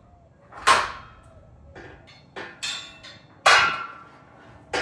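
Steel Smith machine parts knocking together as the guide rod and linear bearings are worked into place: about five sharp metal clanks, each ringing briefly, the loudest about three and a half seconds in.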